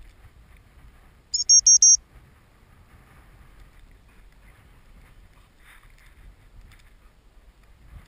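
Gundog whistle blown as about four quick, shrill pips of one steady pitch, about a second and a half in. Light wind rumble on the microphone runs under it.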